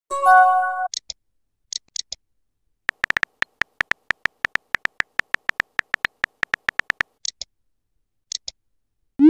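Texting-app sound effects: a short chime, a few light clicks, then a run of rapid keyboard-tap clicks at about six a second as a message is typed, ending with a quick rising whoosh as it is sent.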